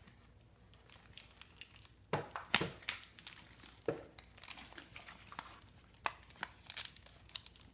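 Thin plastic toy packaging being torn open and handled: irregular crinkling and crackling with sharp clicks, starting about two seconds in.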